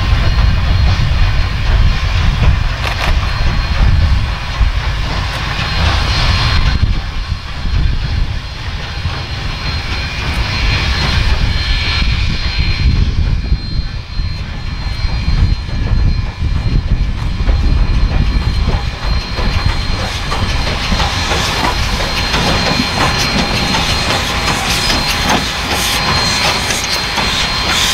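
Victorian Railways K class 2-8-0 steam locomotive drawing a mixed train slowly up to and past the microphone. It makes a heavy low rumble, and sharp clicks from wheels and running gear grow denser as it comes close near the end.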